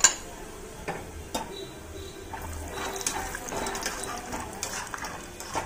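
Raw peanuts frying in hot oil in a steel kadhai. A sharp clatter as they drop in at the start, then a hissing sizzle broken by many small clicks and scrapes of a slotted spoon stirring them against the pan.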